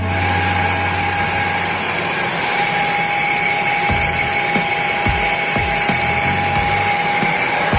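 A power tool's motor running steadily, with a constant whine over a rough grinding noise.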